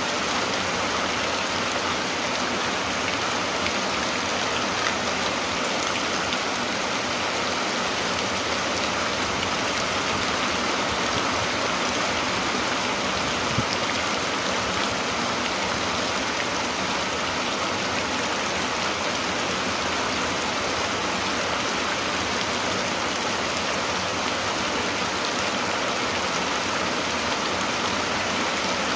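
Steady rain falling, an even unbroken hiss, with one brief tick about halfway through.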